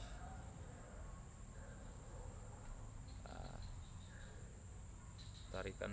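Steady high-pitched trilling of an insect chorus, unbroken throughout, over a low steady rumble.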